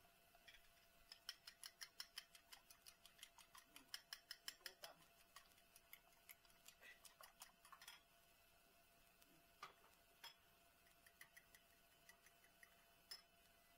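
A fork beating eggs in a small ceramic bowl: quick, faint clinks of the fork against the bowl, about five a second for several seconds, then scattered single clinks.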